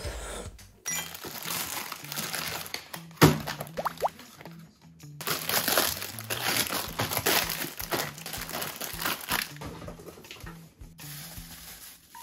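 Plastic food packaging crinkling and rustling as it is handled, with a sharp knock about three seconds in, over light background music.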